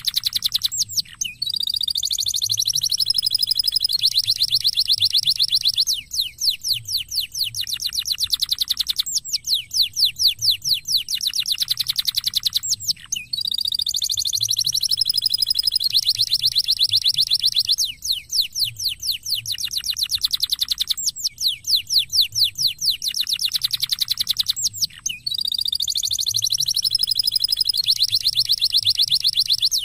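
Domestic canary singing a long song of fast trills, rolls and rapid chirps, high-pitched, with the same run of phrases coming round about every twelve seconds. It is a lure song (pancingan) meant to set other canaries singing.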